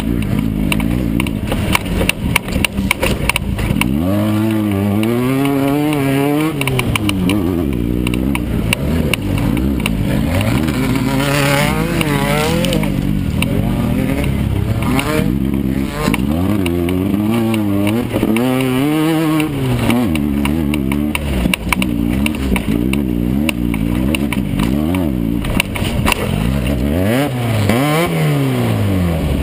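Air-cooled Volkswagen flat-four engine of a Class 9 off-road race buggy under hard driving, its pitch repeatedly climbing and then dropping off as the driver accelerates, shifts and lifts. Frequent knocks and rattles run through it.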